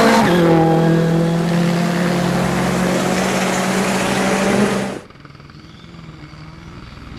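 Ford Fiesta rally car's engine running hard at high revs as it passes close. About five seconds in the sound cuts off abruptly to a much fainter, distant engine.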